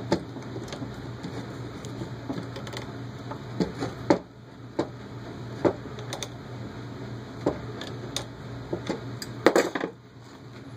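Pliers and a driver clicking and scraping on the screws, nylon locking nuts and metal plate of an RC motor mount as the screws are tightened, in irregular small metallic clicks with a louder cluster of clicks about nine and a half seconds in, over a steady low hum.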